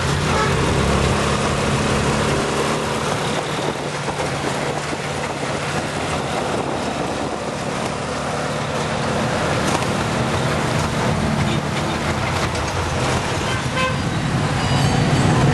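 Busy street traffic: vehicle engines running steadily with horns tooting now and then.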